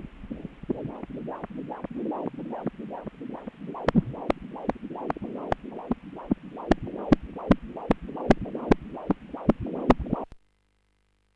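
Pulsed-wave Doppler audio from a Medison ultrasound scanner: the pulsing of blood flow in an artery in the fetal head, about two and a half beats a second, the fetal heart rate, with a sharp click on many beats. It cuts off suddenly near the end.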